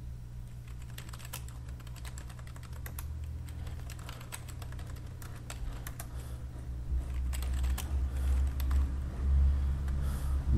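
Computer keyboard typing: irregular key clicks as shell commands are entered, over a low hum that grows louder in the second half.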